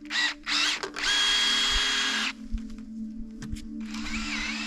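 Power drill boring holes in the sap bucket's lid for the hoses: two short trigger bursts, then a steady run with a high whine for about a second, and another run starting near the end.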